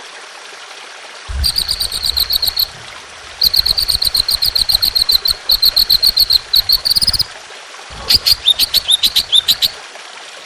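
Songbird singing loud, rapid trills of sharp repeated notes: a short burst, then a long trill of nearly four seconds, then a series of downward-sweeping notes about eight seconds in.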